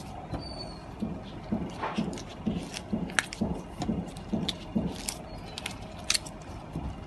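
Gloved hands tearing the heads and guts from small horse mackerel: wet crunching and squelching with several sharp clicks, over a run of soft low thumps about twice a second.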